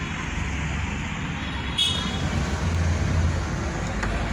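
Steady low rumble of background noise like passing road traffic, with a sharp click that rings briefly about two seconds in.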